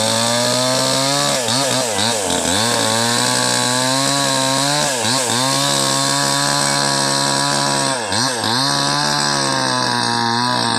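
Stihl-branded two-stroke chainsaw running at high speed, its engine note dipping sharply and recovering a few times.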